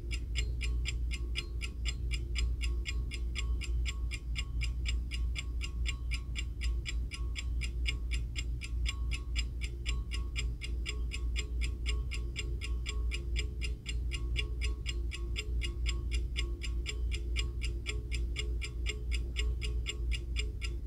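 Hand-wound mechanical movement of a Tokyo Clock Gold Star alarm clock ticking, rapid and even at several ticks a second. A steady low hum runs underneath.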